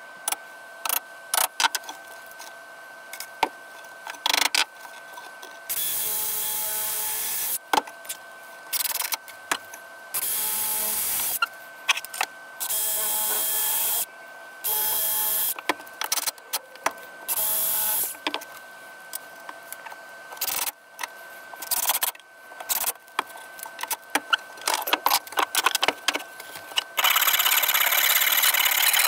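Cordless drill boring holes into cypress board in four short runs of a second or two each, with clicks and knocks of handling in between. Near the end a hand file starts scraping steadily along the wood's edge.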